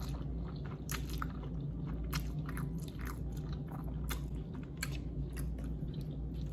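Close-miked chewing and biting of a mouthful of noodles and egg: a string of short, irregular wet mouth clicks and smacks.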